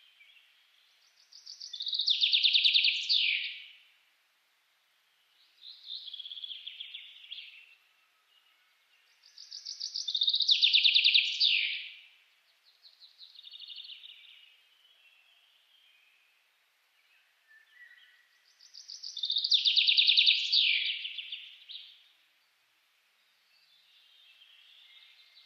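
A bird calling in high, rapid, buzzy trills. Three loud phrases of about two and a half seconds each come roughly eight to nine seconds apart, with softer phrases in between.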